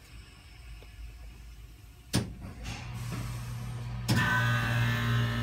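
A Thermotron environmental chamber starts its cooling run. A sharp click comes about two seconds in, then a steady machine hum with a rush of air builds and steps up louder about four seconds in.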